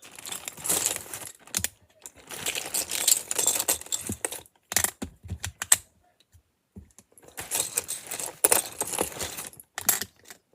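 Loose LEGO plastic pieces clattering and rattling as hands rummage through them, in several bursts of rattling with a few sharp single clicks between.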